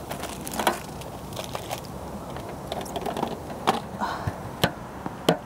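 Food packaging being handled and opened: crinkling with scattered sharp clicks and knocks, the loudest few in the second half.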